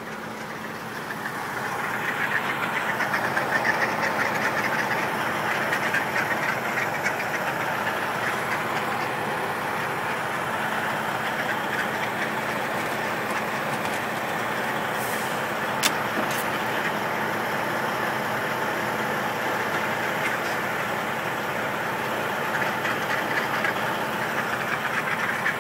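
Semi truck's diesel engine idling with a steady hum, joined from about a second and a half in by a louder, dense rough noise that holds for the rest of the time, with one sharp click about sixteen seconds in.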